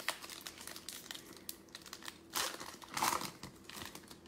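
Foil wrapper of a football trading-card pack crinkling and being torn open by hand, with a steady scatter of small crackles and two louder bursts of crinkling about two and a half and three seconds in.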